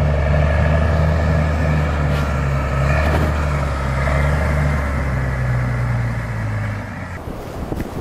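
Crawler bulldozer's diesel engine running steadily while the machine works, cutting off abruptly about seven seconds in.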